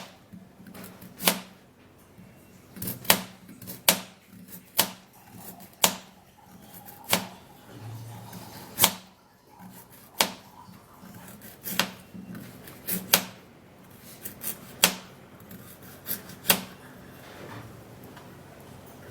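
Kitchen knife dicing raw carrot on a cutting board: single sharp chops about one a second at an uneven pace, stopping near the end.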